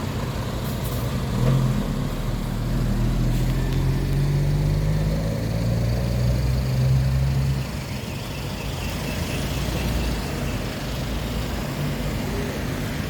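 Concrete floor grinder's motor running with a steady low hum. It grows louder about a second and a half in, then drops back to a lower, steady run about two-thirds of the way through.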